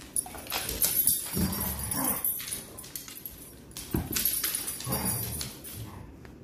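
Dogs play-fighting over a toy: low play-growls in two bouts, about a second and a half in and again at about four seconds, with paws and claws scuffling and clicking on a hardwood floor.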